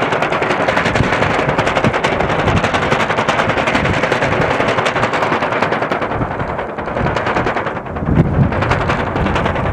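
Strong wind with a fast, dense rattling flutter, and a louder low gust about eight seconds in.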